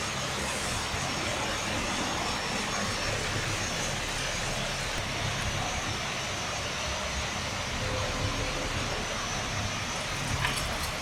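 Steady rumble and hiss of a moving vehicle, with a faint steady high tone above it.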